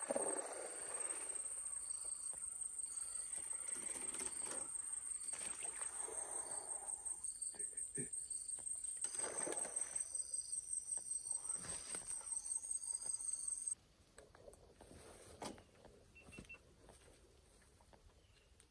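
A giant snakehead splashing at the water's surface as it strikes, over a steady high-pitched chirring of insects. The insect sound stops abruptly about two-thirds of the way through, leaving only faint rustles.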